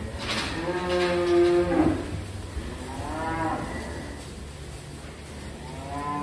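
Young Holstein-Friesian cattle mooing: one long moo of about a second and a half, a shorter moo about three seconds in, and another starting just before the end.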